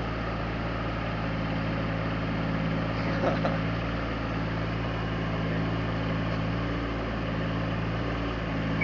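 Excavator's diesel engine running steadily at constant revs, a low even drone.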